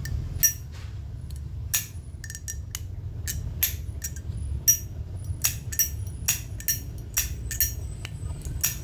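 Zippo Armor-case lighter's lid flicked open and snapped shut over and over: a string of sharp, uneven metallic clicks, several with a short high ring. The thick Armor case makes the clack only moderately loud.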